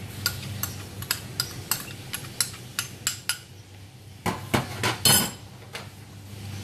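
A metal spoon tapping against the edge of a small bowl, about ten light clinks at roughly three a second, knocking mashed black beans off onto pork ribs. Then a few louder clatters as the bowl and spoon are set down on a stainless steel sink ledge.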